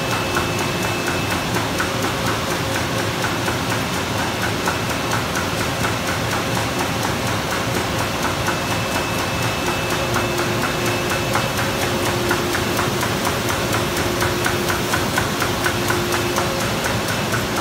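2008 Komori LSX 529+CX sheetfed offset press running, a steady mechanical clatter with rapid, regular clicking.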